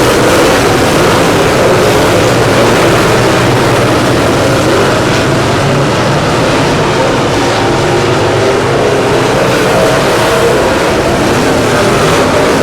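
Dirt late model race car engine running hard and loud, its pitch wavering up and down.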